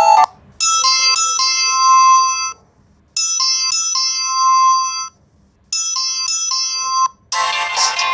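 Electronic phone alarm tone: a short chiming phrase of a few bright notes, played three times with short silences between. Near the end a different, busier tone begins.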